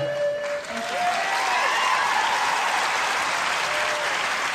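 Studio audience applauding, with cheering voices rising and falling over the clapping.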